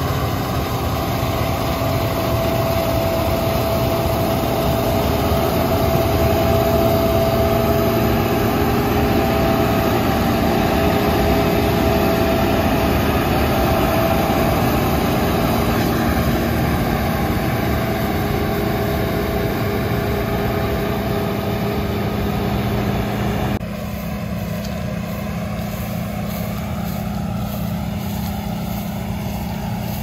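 Large diesel farm machine running steadily under harvest work, with a steady whine over the engine noise. About 23 seconds in, the sound cuts abruptly to a quieter, lower engine running.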